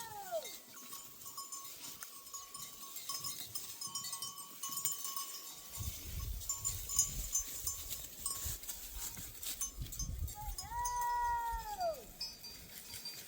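A sheep or goat from the flock bleats: the tail of one call at the very start, then one full bleat about 11 seconds in. Faint high tinkling, like livestock bells, runs underneath.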